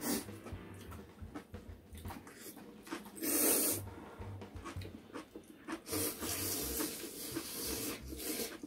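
Two people slurping spicy ramen noodles. There is one loud slurp about three seconds in and more long slurping from about six seconds on, with quieter chewing and breathing between.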